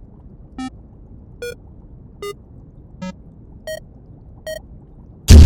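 Electronic keypad beeps as a code is punched in: six short tones about one every 0.8 seconds, each at a different pitch, over a low steady hum. Near the end a sudden, very loud boom cuts in.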